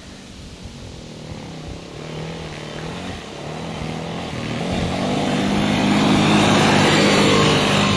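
ATV engine running under changing throttle, its note dropping out and picking up again a few times, growing steadily louder as it comes closer and loudest about six seconds in.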